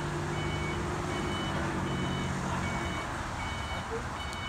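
Vehicle reversing alarm beeping at an even pace, a little faster than once a second, over a low engine hum.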